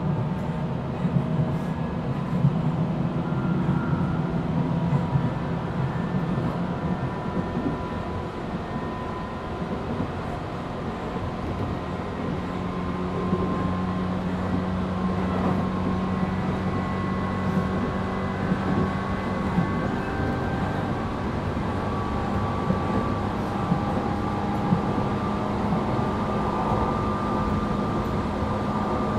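Tobu 8000 series electric train running, heard from inside its motor car MoHa 8270: a steady hum of the traction motors and wheels on the rails, with several whining tones that shift in pitch and occasional sharp clicks.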